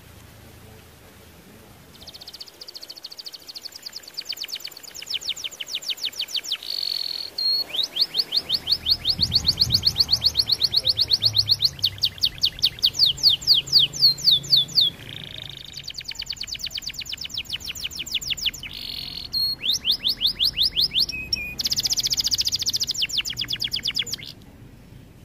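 Red-factor canary singing long trilled song: fast runs of rapidly repeated high notes, phrase after phrase with short breaks, starting about two seconds in and stopping just before the end.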